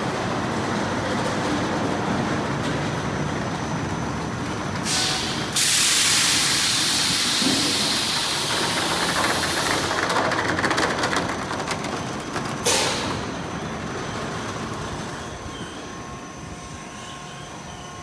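Car wash polish tunnel machinery running: a Peco wrap and top brush combo spinning its cloth brushes against a pickup on the conveyor, a steady rushing noise. A loud hiss cuts in about five seconds in and stops abruptly near thirteen seconds, and after it the noise gradually grows quieter.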